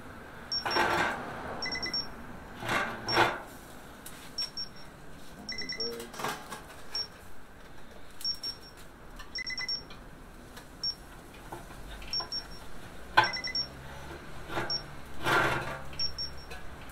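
Metal clanks and scrapes of S-hooks and hanging rods against the steel drum of a Pit Barrel smoker as the hung chickens are lifted out, with a handful of separate sharp knocks.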